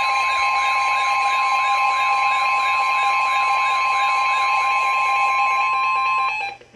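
Emergency Alert System alert tones: two steady tones sounding together with a warbling tone that rises and falls about three times a second, all cutting off near the end. They are the attention signal that comes before a broadcast weather warning.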